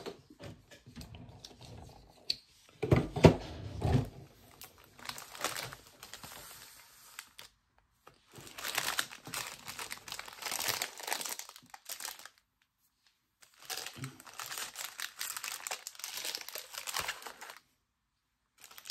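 Trading-card pack wrappers crinkling and tearing as packs are handled and opened, in spells of several seconds. A few dull thumps about three seconds in are the loudest sounds.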